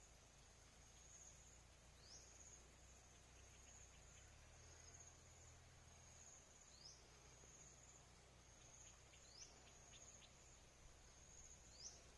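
Faint insects buzzing in a steady, gently pulsing high tone. Four short rising chirps break into it, two to three seconds apart.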